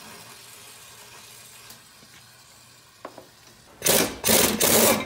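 Oxy-acetylene torch hissing steadily while heating a seized brake caliper bracket bolt. Near the end come loud, repeated bursts of an air impact wrench hammering at the bolt to break it loose.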